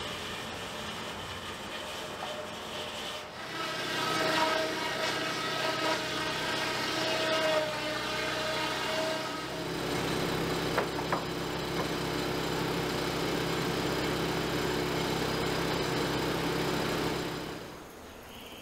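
Sawmill saw cutting through a log on the carriage: a steady ringing whine over the hiss of the cut for about six seconds. Then the mill machinery runs on at a lower, steady pitch, and the sound drops away near the end.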